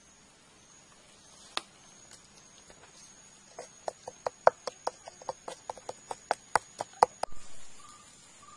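A wooden stick pounding chillies and garlic in a coconut-shell bowl: one knock a second or so in, then a quick, even run of sharp knocks, about five a second, that stops about seven seconds in.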